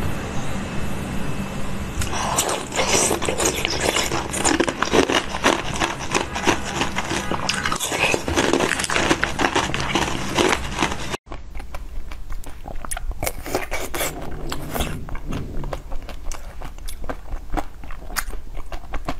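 Close-miked eating-ASMR sounds: a dense run of crunches and clicks that breaks off suddenly about eleven seconds in, giving way to quieter, sparser crunching and biting.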